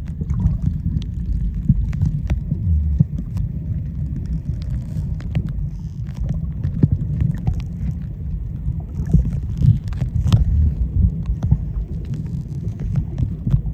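Underwater sound of the sea picked up by a submerged camera: a steady muffled low rumble with many scattered sharp clicks.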